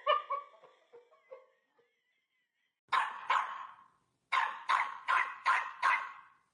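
A dog barking: two barks about three seconds in, then a quick run of five barks. Softer pitched sounds come before them in the first two seconds.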